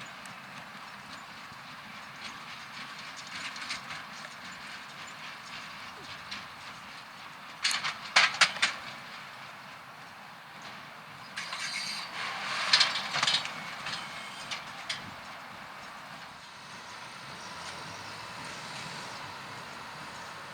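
Tractor-drawn small square baler and Bale Baron bundler at work: a steady mechanical running, with a cluster of sharp clanks about eight seconds in and a longer spell of clattering a few seconds later.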